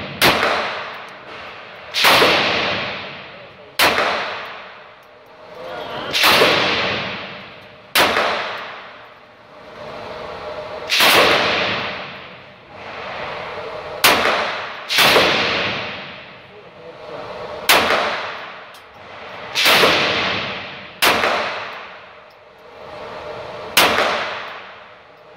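Sig Sauer P938 pistol firing .22 LR rounds, single shots about a dozen times at an irregular pace of one every one to three seconds. Each shot is followed by a long ringing echo off the walls of the indoor range.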